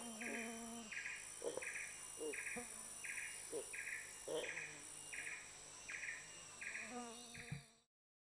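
Tropical rainforest insect chorus: a buzzing call pulsing about every 0.6 s over steady high-pitched insect whines, with a few short lower calls scattered through it. The sound cuts off abruptly near the end.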